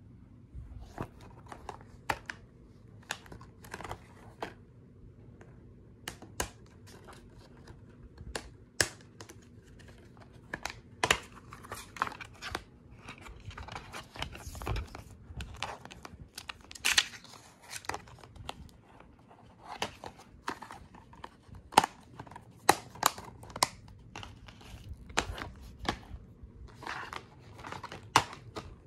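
Hands handling plastic DVD cases: irregular clicks, snaps and taps as a case is opened and closed and cases are shifted against each other, with rustling of the plastic sleeve and paper insert.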